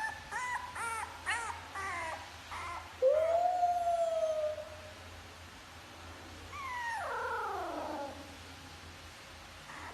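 A dog whimpering in a quick run of short rising-and-falling yips. About three seconds in comes one long, level whine, and a little later a howl that slides down in pitch.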